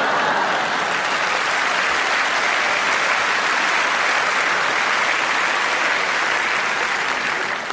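Live audience applauding, a steady, dense round of clapping that starts to fade near the end.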